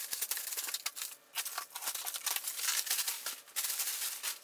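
Plastic stretch wrap crinkling and rustling as it is pulled off a wrapped pallet by hand, in a few spells with short breaks about a second in and about three and a half seconds in.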